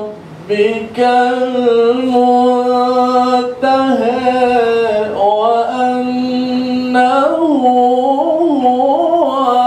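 A man reciting the Quran in the melodic tarannum style, amplified through a microphone. He holds long, steady notes, takes a short pause for breath just after the start, and makes quick ornamented turns in pitch near the end.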